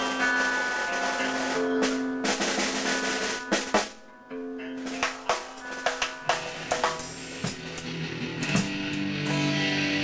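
Drum kit played loosely in a warm-up: irregular snare and bass drum hits with rimshots, while an electric guitar holds notes through its amp, its chords coming in more fully in the second half.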